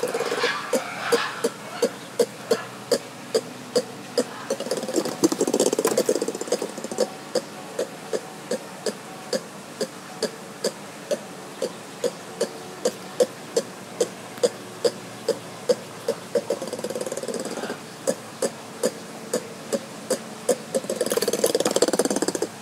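Ring-tailed lemur giving a steady series of short clicking calls, about two a second. Louder, rougher sounds join near the start, around five seconds in and near the end.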